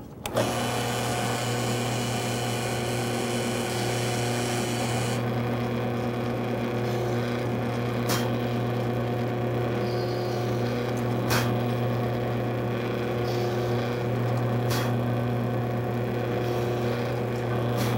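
Drill press motor starting up just after the start and running with a steady hum while its bit bores a row of shallow shelf-pin holes in a cabinet side panel, set to a quarter-inch depth by the depth stop. A few short sharp clicks sound over the hum about 8, 11 and 15 seconds in.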